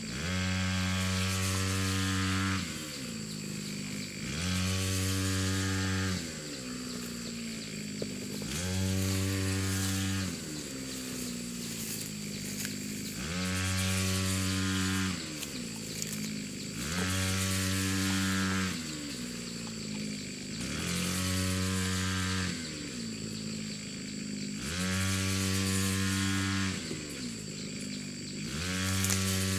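Small engine running at a steady pitch for about two seconds, then dipping and climbing back up. The cycle repeats roughly every three and a half seconds, eight or so times.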